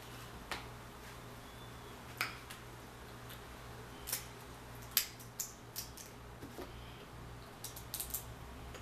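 Kitchen scissors snipping through king crab leg shell and the shell cracking: an irregular run of short sharp clicks and snaps, with a quick cluster of them near the end, over a low steady hum.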